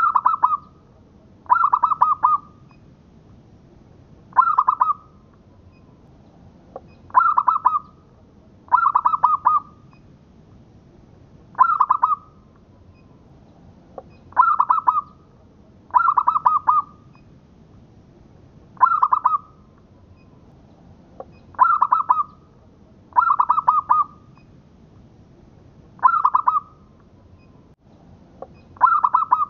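Zebra dove (perkutut) of the local Indonesian type cooing: about thirteen short phrases of rapid-fire coo notes, each under a second long, coming every two seconds or so, some in close pairs.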